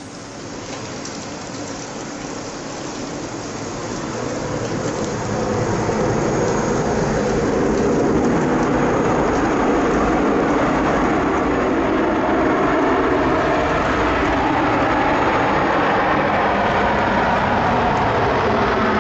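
Boeing 737-800 jet engines as the airliner lands on a rain-soaked runway, growing louder over the first six seconds or so to a loud, steady rumble and rush.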